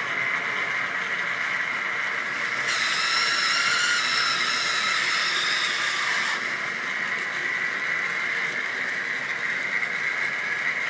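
Model railway train running on the track with a steady high whine. A higher, squealing set of tones joins about three seconds in, and the lowest of them slides down before it cuts off about three and a half seconds later.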